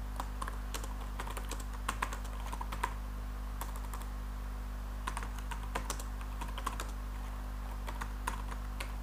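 Typing on a computer keyboard: irregular runs of key clicks with a lull in the middle, over a steady low electrical hum.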